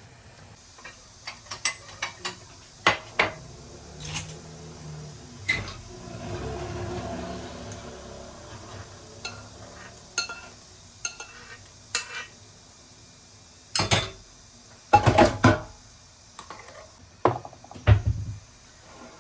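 Kitchen dishes and metal utensils clinking and knocking at irregular moments while cooking, with a soft steady noise for a couple of seconds in between.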